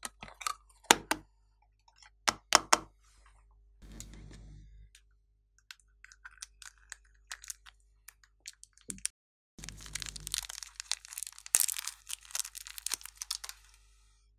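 A small plastic storage box snapping open, with a few sharp clicks. Then, after scattered small clicks, a dense run of crackling and crunching as a piece of crumbly clay is broken and peeled apart by hand, stopping shortly before the end.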